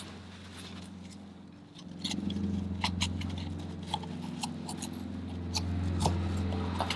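Scattered clicks and scrapes as a cut-open aircraft oil filter is worked apart by hand, the pleated paper element rubbing and catching against the metal canister. A steady low hum comes in about two seconds in.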